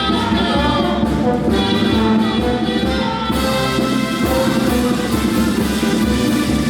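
Marinera norteña music played by a brass band, with trumpets and trombones over drums, at a steady loud level.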